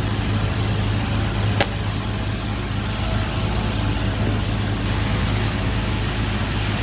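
Steady low machine hum from the TIG welding equipment, with one sharp click about one and a half seconds in.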